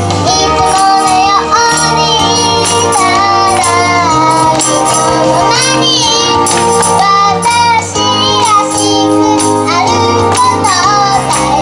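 A young girl singing a pop song over a backing track, her voice carrying the melody above a bass line that changes note every second or two.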